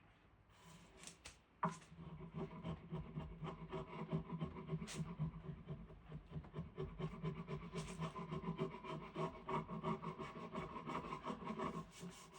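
Diamond willow wood being worked by hand with rapid, even back-and-forth rubbing strokes, starting about a second and a half in and stopping just before the end.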